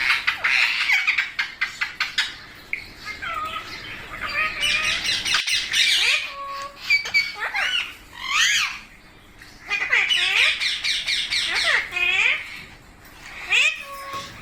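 Rose-ringed parakeets (Indian ringnecks) calling: rapid harsh screeches and squawking chatter in quick bursts, with brief lulls about nine and thirteen seconds in.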